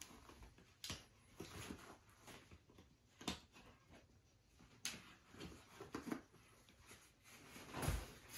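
Faint rustling of an Exo Mountain Gear K3 6400 backpack's nylon straps and fabric as a tripod is cinched to its side, with three sharp buckle clicks spaced over the first five seconds and a dull thump near the end as the pack is pressed down.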